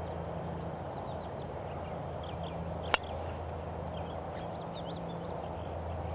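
A single sharp, crisp crack of a driver's clubface striking a teed-up golf ball, about three seconds in.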